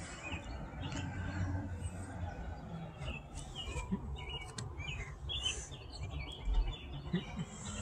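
Small birds chirping in short, scattered calls over a low background rumble.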